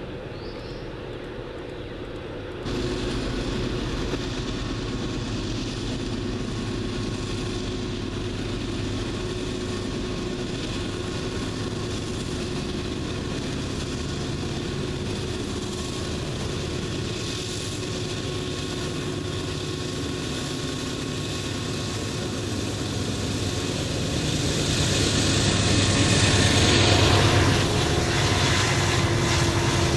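Several Norfolk Southern diesel locomotives running in a lashup, their engines droning steadily and growing louder as the lead units pass close by near the end, followed by freight cars rolling past.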